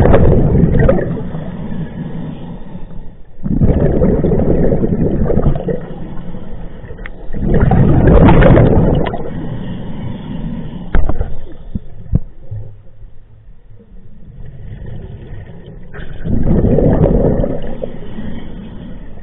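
Scuba diver breathing through a regulator underwater: loud bubbling exhalations, four of them a few seconds apart, with quieter stretches between and a couple of sharp clicks near the middle.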